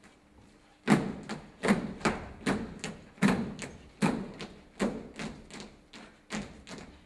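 Dancers' feet stamping and stepping on a wooden stage floor in a steady rhythm, starting about a second in: heavy stamps a little faster than one a second with lighter steps between, each echoing briefly in the hall.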